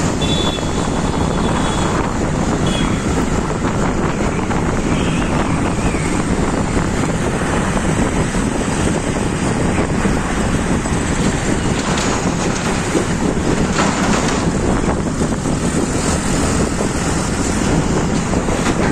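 Wind rushing over the microphone of a moving motorbike, steady and loud, with road traffic running underneath.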